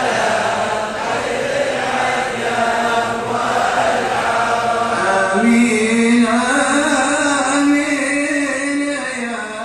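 Many men's voices chanting together in a devotional mawlid recitation. About five seconds in, a clearer melody of long held notes comes to the front.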